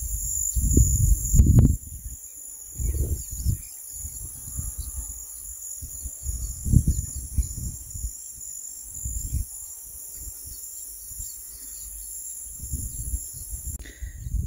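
A steady high-pitched chorus of insects, with irregular low rumbles and bumps on the microphone, heaviest in the first two seconds.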